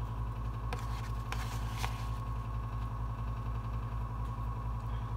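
Steady low mechanical hum with a faint high tone over it, and a few soft clicks of a metal spoon spreading sautéed vegetables over ricotta on pizza dough.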